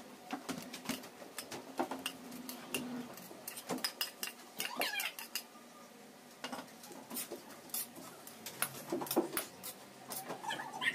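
Utensils clinking and scraping against a wok and a mixing bowl as garlic and ginger are scraped in and stirred: irregular clicks and taps throughout.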